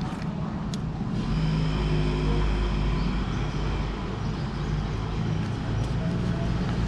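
A motor vehicle engine running close by, a low rumble that grows louder about a second in, over general street traffic.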